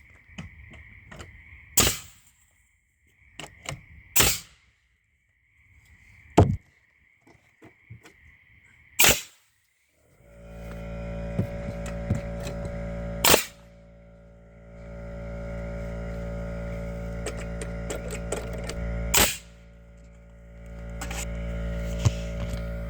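Four loud, sharp knocks a couple of seconds apart against a faint high steady whine. About ten seconds in, a steady hum with several fixed tones starts; it drops back twice, and two more sharp knocks sound through it.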